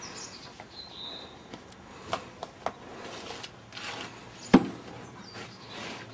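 Plasterer's trowel scraping and tapping against a hand-held hawk and the wall while spreading coloured finishing render, in scattered short strokes. A single sharp knock about four and a half seconds in is the loudest sound.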